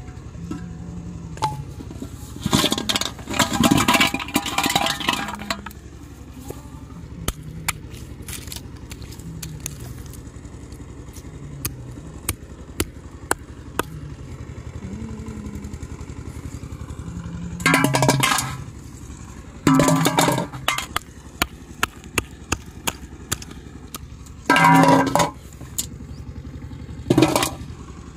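Hands handling plastic bottles, string and an aluminium pot: several short bursts of rustling and clatter, the longest a few seconds in, with scattered small clicks between.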